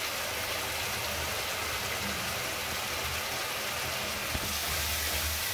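Tomato-onion masala sizzling steadily in hot oil in an iron kadhai over a gas burner, with a low, even rumble underneath.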